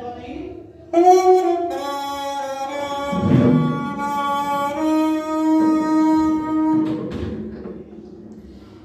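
Homemade PET-bottle horn (cornetinha) playing a melody in held, reedy notes that start about a second in and step from one pitch to the next, with a long held note in the middle.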